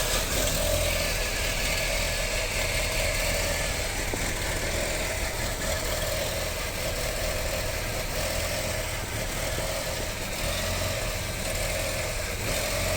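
Audi A4 B6's 2.0-litre ALT four-cylinder petrol engine idling steadily.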